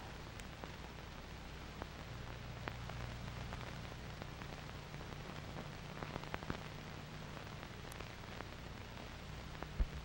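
Surface noise of an old film soundtrack: steady hiss over a low hum, with scattered crackling clicks.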